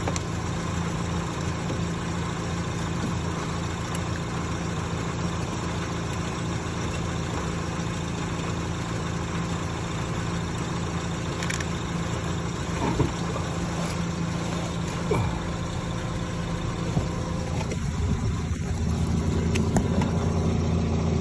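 Steady low mechanical hum with a couple of light sharp clicks partway through; the hum gets louder near the end.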